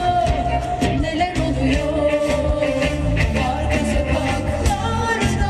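Female singer singing live with a pop band, her held, wavering vocal line over steady bass and regular drum hits.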